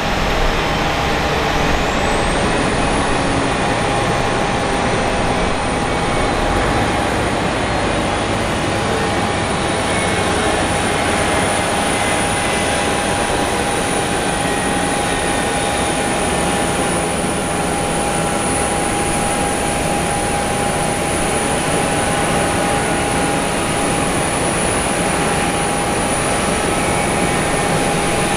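Jet turbine noise on an airport apron: a steady roar with a held mid-pitched tone, and a high whine that rises in pitch over the first couple of seconds, then holds.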